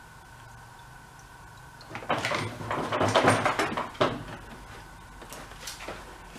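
Hard objects clattering and scraping while a mower and its fuel-draining gear are handled on a workbench, ending in a sharp knock about four seconds in, then a couple of light clicks.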